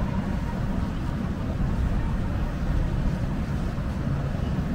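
Steady low rumble of outdoor city waterfront ambience, with no distinct events.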